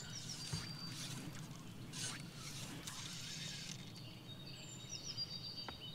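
Quiet riverside ambience: a bird singing high, thin whistled phrases on and off, over a steady low hum and a few faint brief rustles.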